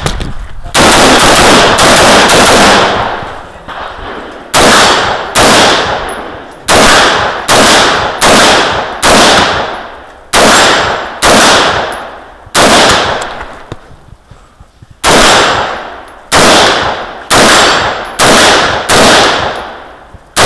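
AR-15-style semi-automatic rifle fired in a long string of rapid single shots, roughly one every half second to a second, each trailing off in echo. There is a brief pause about two-thirds of the way through, then another quick run of shots.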